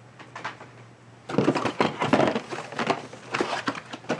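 Blister-carded toy cars rustling and clacking against each other and the cardboard case as a hand rummages through it, starting about a second in as a rapid, irregular run of crackles and knocks.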